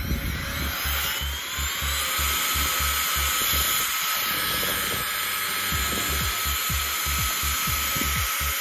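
Nitecore BlowerBaby electric air blower running: its motor spins up with a rising whine over about the first two seconds, then runs steadily with a high whine and a rush of blown air.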